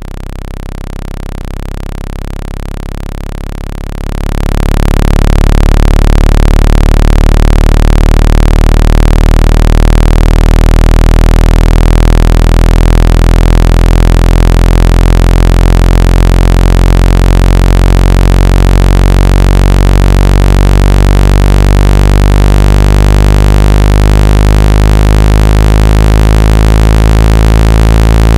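Synthetic water-ejection tones for a phone speaker: a loud, steady stack of low-pitched electronic tones meant to vibrate trapped water out of the speaker. About four seconds in it swells to a louder, harsher level and then holds steady.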